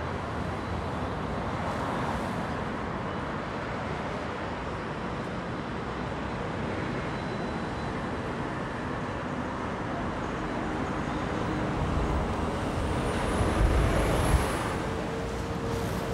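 City street traffic noise, cars and other vehicles running steadily, with a louder vehicle passing close about thirteen to fourteen seconds in.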